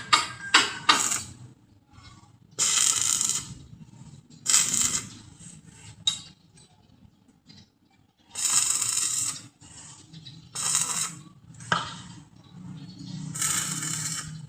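A few quick clicks and clinks, then five separate short scraping strokes, each under a second long, with pauses of a second or more between them.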